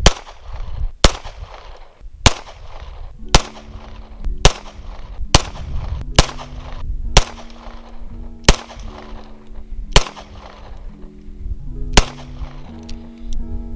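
Pistol shots fired one at a time, about eleven of them, roughly a second apart at first, with the gaps widening toward the end. Background music comes in under the shots about three seconds in.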